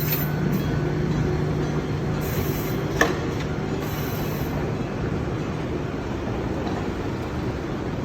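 Enoden electric train, the 305 and 501 sets coupled, running past at a level crossing. Steady rolling and motor noise, with a low hum that fades about two seconds in and a single sharp clack about three seconds in.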